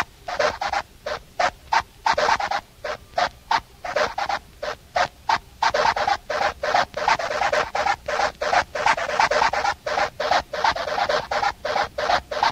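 Breakdown in a techno/hardcore DJ mix: the kick and bass are out, leaving a rhythmic loop of short, sharp, raspy percussive hits, about three to four a second.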